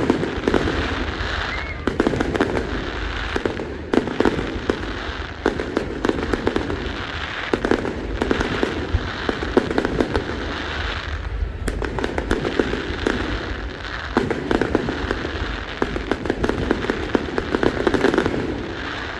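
Fireworks display going off continuously, with many sharp bangs and crackles in quick succession.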